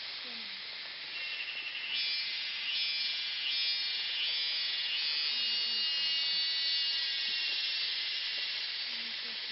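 A dense chorus of forest insects buzzing steadily at a high pitch, growing louder about two seconds in.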